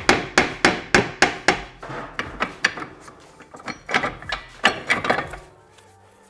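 A hammer tapping rapidly on a BMW E60 front brake caliper, about three strikes a second, to knock it loose. After about two seconds the taps give way to irregular metal knocks and rattles as the caliper is worked off the carrier.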